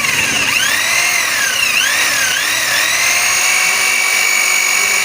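High-speed electric power tool running with a whine, its pitch dipping and recovering a few times as it is loaded, then holding steady from about three seconds in.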